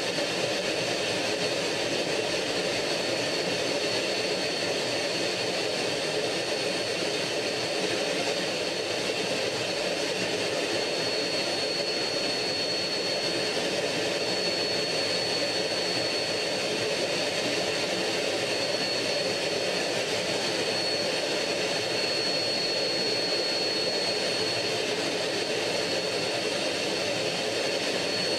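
MiG-15 jet fighter's turbojet engine running steadily in flight, heard from inside the cockpit under the canopy as a constant rush of engine and airflow noise with a thin, steady high whine.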